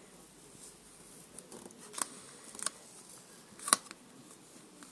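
A few sharp clicks of handling noise over faint room hiss, the loudest about three and a half seconds in.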